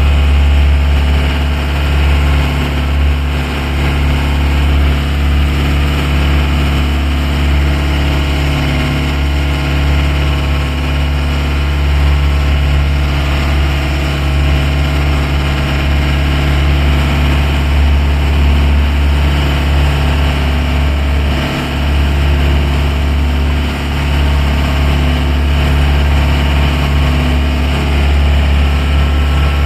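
Small ferry boat's engine running steadily with a deep, even hum.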